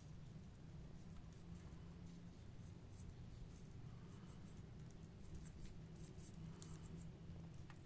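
Near silence: a low steady hum with faint, scattered scratching and clicking.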